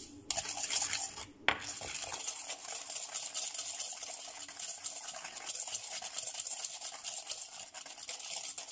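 Wire whisk beating egg and sugar in a stainless steel mixing bowl: fast, continuous scraping and clinking of the whisk against the metal, with a sharper knock about a second and a half in.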